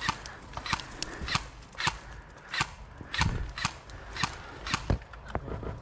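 Airsoft guns firing single shots in an exchange of fire: a series of sharp cracks, irregularly spaced at about two a second.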